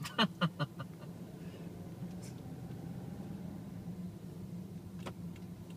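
Steady low hum of a car's engine and tyres heard inside the cabin while driving slowly. Just after the start, a quick run of four or five short, sharp clicks, and one faint click about five seconds in.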